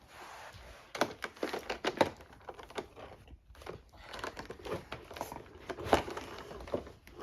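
Plastic toy packaging crinkling, with scattered clicks and taps as a toy figure is worked out of it.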